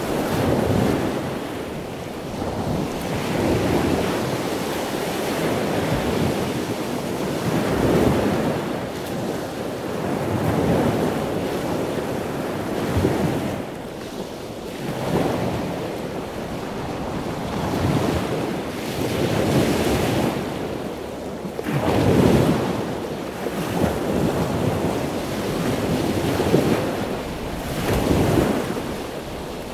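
Sea surf washing onto a beach, rising and falling every two to three seconds, with wind in the background.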